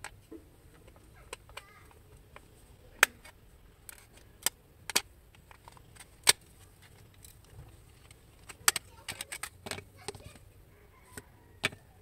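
Plastic snap clips of a TV remote control's case clicking and cracking as the two halves are pried apart: a string of sharp single clicks, bunched closely together in the later part.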